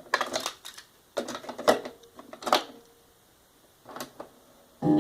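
The cassette deck keys of a Panasonic RX-CT800 dual-cassette boombox being pressed: about half a dozen sharp mechanical clicks and clunks spread through the few seconds. Near the end, cassette playback of a song starts again.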